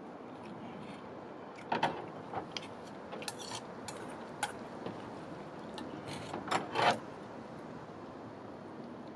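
Tableware clinking and knocking at a meal: a scattering of short taps, with the loudest cluster about seven seconds in.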